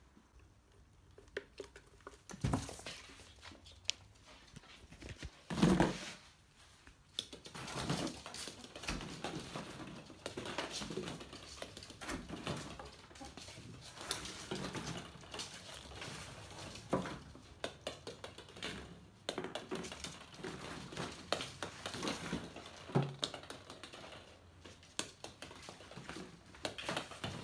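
A ferret scampering on a wooden floor: claws pattering and hollow plastic play balls knocking and rolling, an irregular run of small clicks and knocks with a louder thump about six seconds in.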